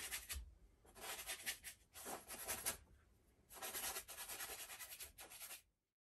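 Bristle brush rubbing oil paint onto a canvas in about four scrubbing strokes of roughly a second each, faint, cutting off suddenly near the end.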